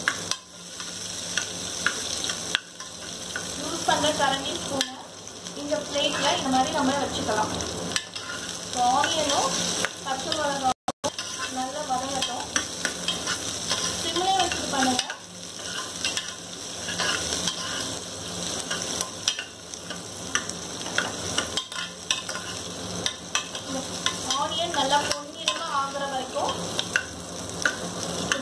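Sliced onions and green chillies sizzling in hot oil in an aluminium pressure cooker, sautéing, while a steel ladle stirs them, scraping and clicking against the bottom of the pot.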